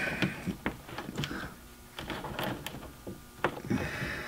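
Fingers prying and working a wiring plug loose from a car's rear hatch panel: scattered light clicks, scrapes and rubbing of rubber and plastic.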